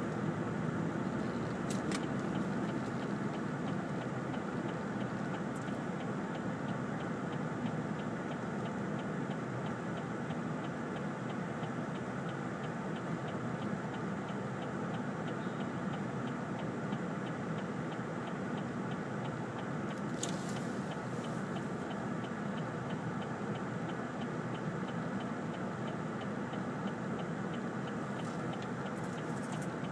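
Car interior noise heard inside the cabin: a steady low engine and road rumble, the car slowing and then idling at a light, with a faint, regular ticking throughout.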